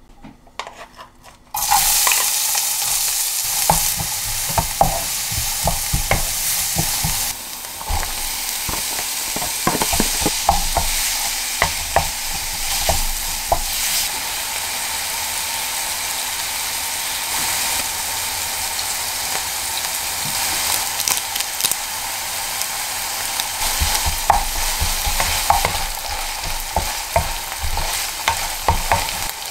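Ground pork frying in hot oil in a non-stick frying pan, the sizzle starting suddenly about a second and a half in. A wooden spatula breaks up and stirs the meat, with frequent small scraping clicks against the pan.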